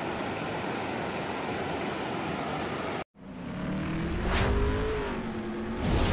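Water rushing steadily down a rock cascade, cut off abruptly about three seconds in. After a moment's silence, a car engine sound effect revs up and down, with a whoosh about a second later.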